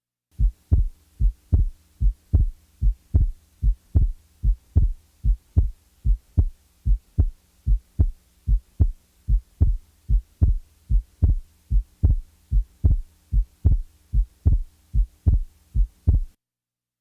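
Recorded heart sounds for cardiac auscultation: a steady run of short dull beats, about two and a half a second, over a faint steady hum, stopping abruptly near the end.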